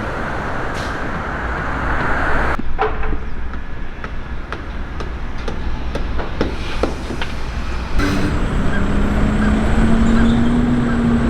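Outdoor street ambience with road traffic. It changes abruptly twice: first to a quieter stretch with scattered sharp clicks and taps, then to a steady droning hum in the last few seconds.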